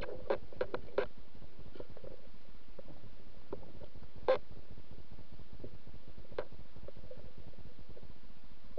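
Muffled underwater ambience of a river, heard through a waterproof camera housing: a steady low rumble with several sharp clicks in the first second, then a louder click about four seconds in and another about six seconds in.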